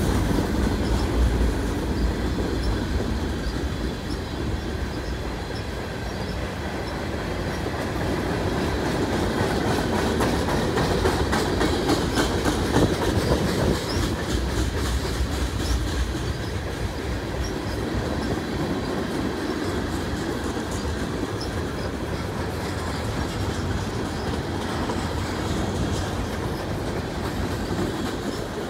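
Freight cars (covered hoppers, tank cars, then centerbeam flatcars) rolling steadily past at track side, their wheels clicking over the rail joints over a continuous rumble.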